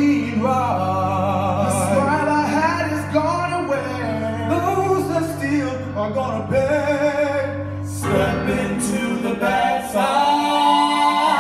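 A men's show choir ensemble singing a pop song in close harmony over a sustained low bass note. About eight seconds in the bass note stops and the voices hold a long chord.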